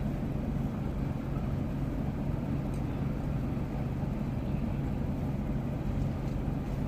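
Steady low engine-like hum with a constant low tone and a rumbling noise underneath, unchanging throughout.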